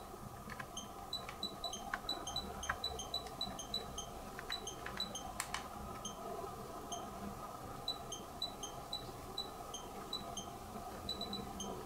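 High, short tinkling chime notes at a few fixed pitches, struck irregularly over a steady background hiss, with a few faint clicks.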